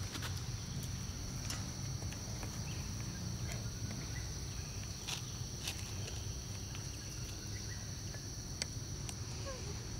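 Outdoor ambience: a steady high insect drone over a low rumble, with scattered small clicks and rustles.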